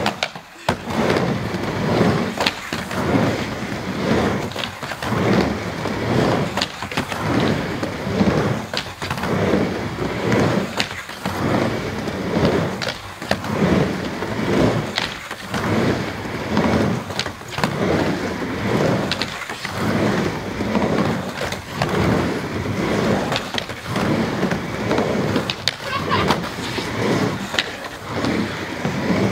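Skateboards rolling back and forth across a wooden mini ramp, the wheel noise swelling and fading about once a second, with sharp clacks of tails and trucks hitting the coping as the skaters do tail stalls and revert.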